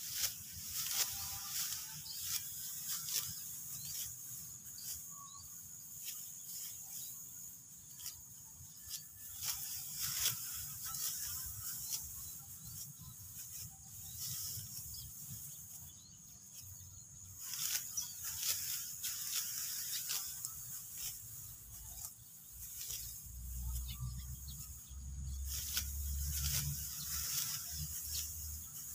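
Dry rice stalks being cut with a hand sickle and gathered: irregular crackling and rustling of straw, stroke after stroke. A low rumble joins in near the end.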